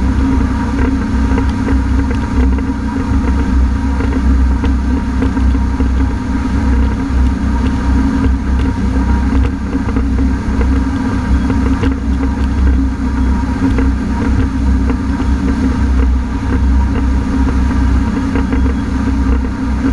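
Honda AquaTrax F-12X personal watercraft's turbocharged four-cylinder engine running steadily under a low rumble, with no change in pitch. The newly installed turbo has failed, which leaves the ski down on power.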